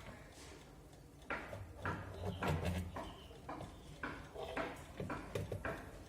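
A run of irregular mechanical clicks and knocks from a large alarm clock being handled, starting about a second in.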